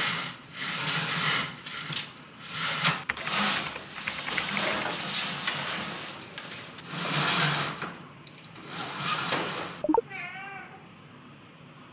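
Roller blind being pulled up by its cord in a series of pulls, each a swell of noise lasting about a second. Near the end a cat meows once.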